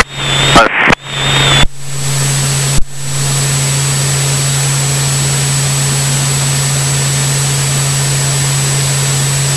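Diamond DA40 light aircraft's engine and propeller droning steadily in the cockpit, a low hum under a broad hiss. The sound cuts out briefly a few times in the first three seconds, with a sharp click about three seconds in, then runs evenly.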